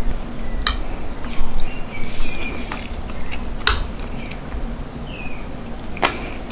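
A metal spoon clicking and scraping against a ceramic plate while scooping rice, with a few sharp clinks.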